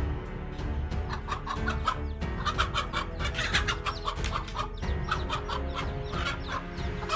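A chicken clucking in quick, repeated calls, over background music.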